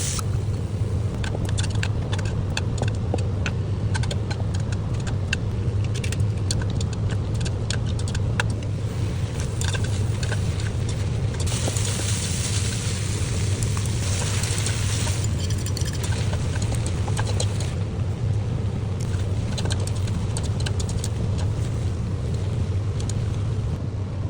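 Noodles being stir-fried with a metal utensil: frequent clinks and scrapes of metal on the pan, with sizzling that swells for a few seconds about halfway through, over a steady low hum.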